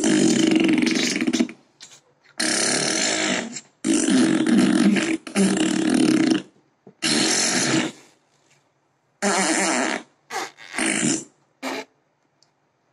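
A series of recorded fart sound effects played through an Amazon Echo Dot smart speaker: five long ones of about a second or more each, then three or four short ones near the end.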